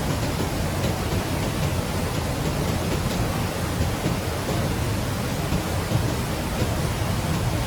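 Steady rushing of river water, an even noise with a strong low rumble.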